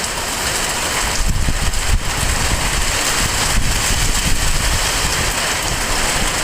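Wind-blown rain falling steadily, with gusts of wind buffeting the microphone as an uneven low rumble.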